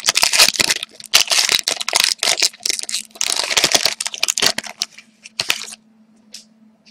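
A hockey card pack's wrapper being torn open and crinkled by hand, a dense crackle with many sharp clicks that stops about six seconds in.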